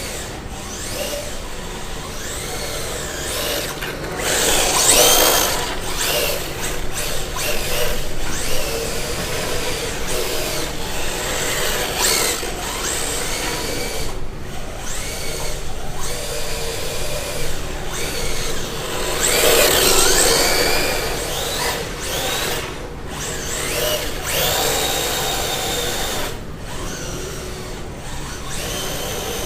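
Radio-controlled drift cars' electric motors whining, the pitch rising and falling repeatedly as they accelerate and slide, loudest about five seconds in and again about twenty seconds in.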